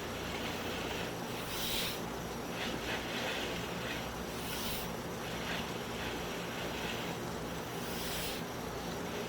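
Drain inspection camera rig with its cable being pulled back through a drain line: a steady low hum and hiss, with a brief hissy rasp every few seconds.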